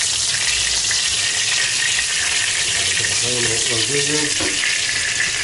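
Boiled lagman noodles frying in hot melted butter in a kazan, a steady sizzle.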